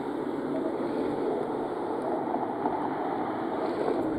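Street traffic noise at night: a steady rush of tyres and engine as a car drives through the intersection.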